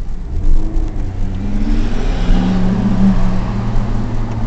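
Ferrari F430's stock V8 exhaust as the car accelerates past, the revs climbing to their loudest about two to three seconds in and then holding steady. Heard from inside another car.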